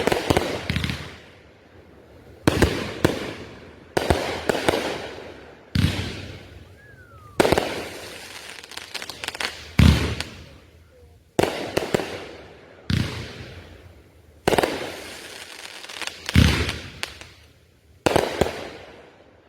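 Consumer fireworks going off in a steady string of about eleven sharp bangs, one every second and a half to two seconds, each trailing off into crackle.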